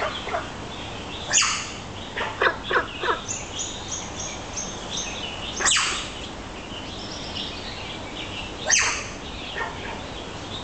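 Loud, sharp animal calls that sweep quickly down in pitch: one about a second in, a quick cluster of three or four about two to three seconds in, then single ones at about six and nine seconds. Between them, from about three to five seconds, comes a run of short high whistled notes stepping down in pitch.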